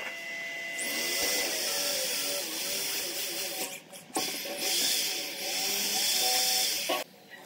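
Electric drill with a twist bit boring into the edge of a wooden board, the motor's pitch rising and falling as it cuts. It stops briefly about four seconds in and again near the end.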